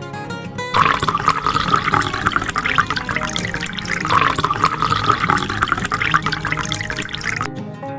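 Liquid pouring and splashing in a steady rush that starts just under a second in and stops about half a second before the end, over acoustic guitar music.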